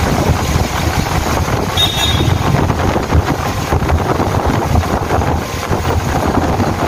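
Wind buffeting a phone's microphone: a loud, gusting rush of noise, heaviest in the low end.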